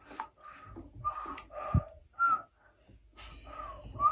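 A baby blowing a string of short, breathy puffs through pursed lips, several of them carrying a faint whistled note: a baby trying to whistle.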